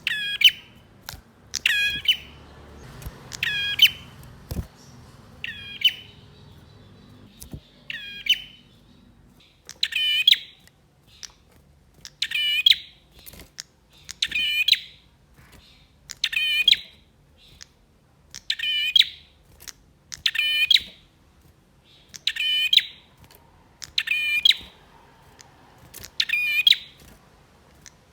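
Male prenjak (a prinia) calling: a short, sharp phrase of rapid chirps repeated about once every two seconds.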